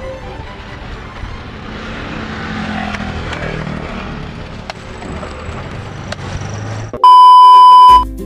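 Street noise with traffic, then a loud, steady, high-pitched electronic beep lasting about a second near the end.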